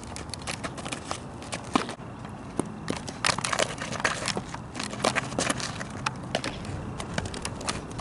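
Live sound of softball ground-ball practice on a dirt infield: a run of irregular sharp clicks and scuffs, busier from about three seconds in.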